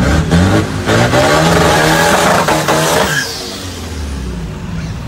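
Diesel pickup truck engine revving hard as the truck launches with wheelspin, its pitch climbing for about three seconds. The sound then drops away quickly as the truck pulls off.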